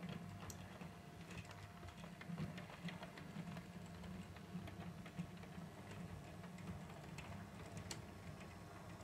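Model railway diesel locomotive hauling a short train of wagons: a faint steady low hum from the running locomotive, with irregular light clicks of the wheels passing over rail joints and points.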